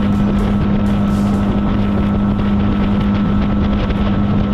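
Boat's outboard motor running steadily at one even pitch while underway, with wind buffeting the microphone.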